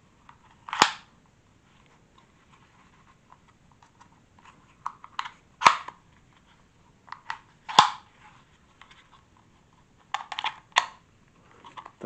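Sharp plastic clicks and snaps from a cordless stick vacuum's flat attachment nozzle as its switchable brush is pushed in and out. There is a loud snap about a second in, two more in the middle with lighter clicks around them, and a quick run of clicks near the end.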